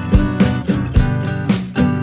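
Music: a guitar strummed in a steady rhythm.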